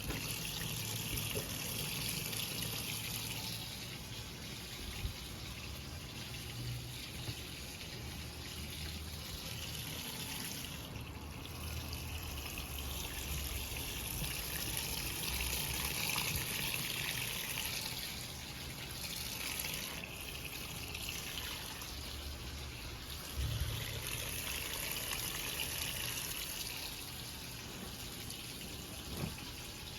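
Electrolux LE06DBD top-load washing machine taking in water: a steady rush of water pouring into the drum, swelling and easing a little over time, with a low rumble underneath.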